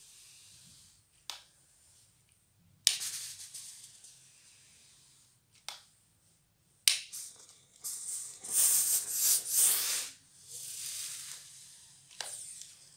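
Edmark handheld garment steamer hissing in sudden bursts of steam as it is pressed along cotton trousers: one about three seconds in, another near seven seconds, and a longer run around eight to ten seconds.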